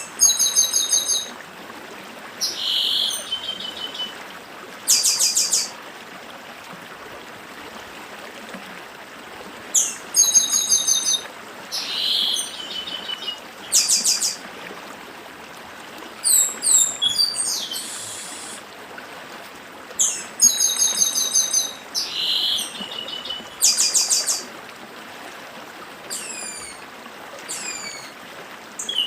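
Chestnut-capped blackbird singing: short phrases of high, quickly repeated whistled notes and trills, coming every two to three seconds with one longer pause. A stream runs steadily underneath.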